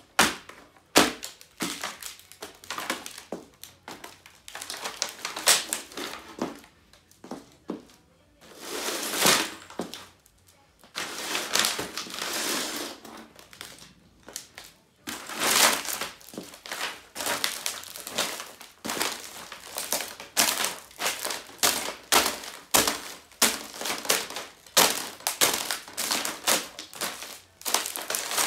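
Laptop being crushed under high heels: repeated sharp cracks and heel strikes on its plastic casing and screen layers, with some longer stretches of crackling between the strikes.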